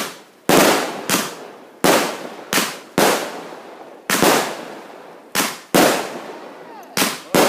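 Fireworks going off shot after shot: about eleven sharp bangs, irregularly spaced half a second to a second apart, each trailing off quickly.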